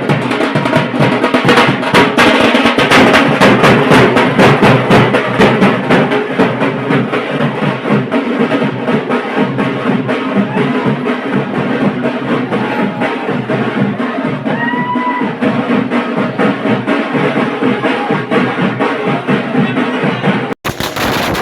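Loud, fast drumming with music, dense with drum strokes and rolls, with a brief whistle-like tone about fifteen seconds in. The sound cuts out for a moment near the end.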